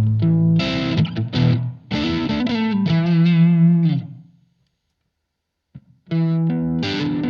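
Electric guitar played through a Blackstar ID:Core Stereo 40 amp: chords and a riff, then a held note with vibrato that fades out about four seconds in. After a second and a half of silence the playing starts again.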